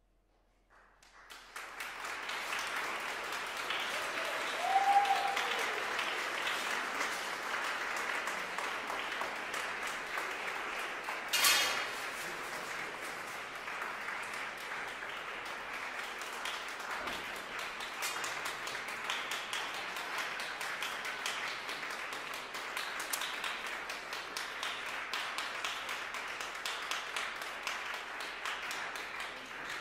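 Audience applauding, starting about a second in after silence and going on steadily. A short pitched call sounds about five seconds in, and a single sharp knock with a brief ring comes at about eleven seconds.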